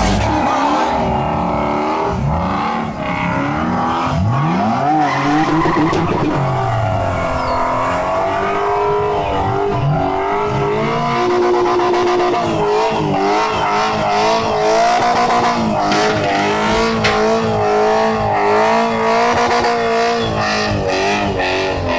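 Drift car spinning donuts: its engine revs up and down while the rear tyres squeal and smoke, with a warbling squeal and repeated rising revs.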